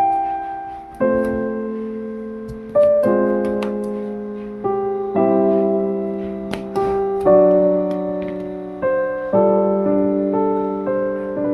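Background piano music: slow chords struck every second or two and left to ring out.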